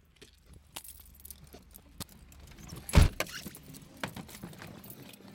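Car keys jangling, with scattered small clicks and rustles of handling, and one heavy thump about three seconds in.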